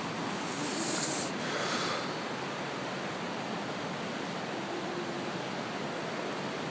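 Fast-running floodwater rushing over the creek, a steady wash of noise that swells briefly about a second in.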